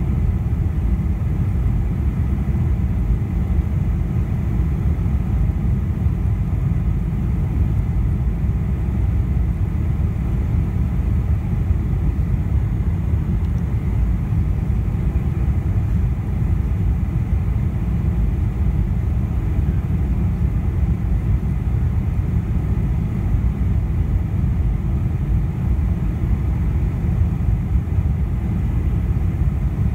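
Steady low rumble inside the cabin of a Boeing 747-400 on final approach with flaps extended: engine noise and airflow over the wing, unchanging throughout.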